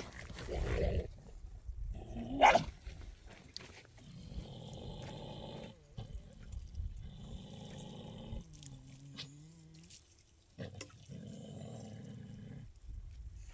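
Dog growling in several drawn-out stretches of a second or two each, with one loud, sharp cry about two and a half seconds in.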